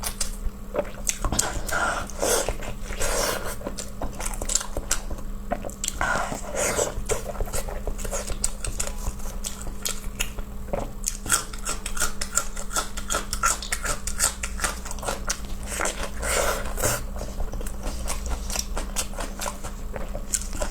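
A person chewing and biting soft food close to the microphone: wet smacking and squelching, with irregular clicks of the lips and teeth. The food is pig stomach stuffed with pig brain, dipped in sauce.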